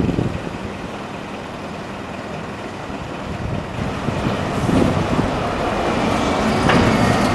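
A large road vehicle approaching, its engine and road noise growing steadily louder, with a faint steady whine joining in over the last couple of seconds.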